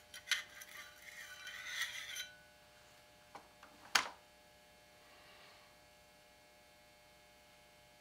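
Steel parts of a Winchester Model 1903 .22 rifle's bolt assembly scraping and clinking for about two seconds as it is slid out of the receiver. A few light clicks follow, then one sharp metallic click about four seconds in.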